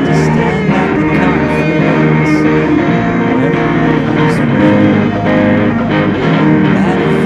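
A rock song played on electric guitar, with a man singing over it.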